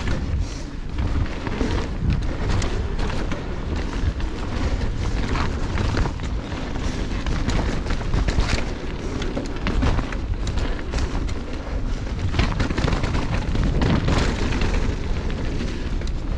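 Wind buffeting a GoPro Hero 8 Black's microphone as a mountain bike descends dirt singletrack at speed, with a heavy, constant rumble. Tyres run over dirt and stones, with irregular rattles and knocks from the bike throughout.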